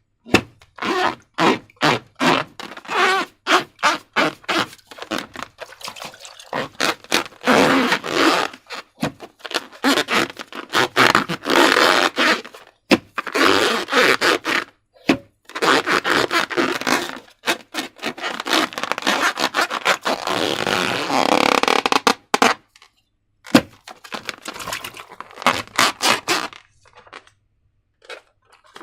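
Hands working rubber balloons and slime: a busy run of short scraping, squelching strokes, a few a second with brief pauses, thinning out near the end.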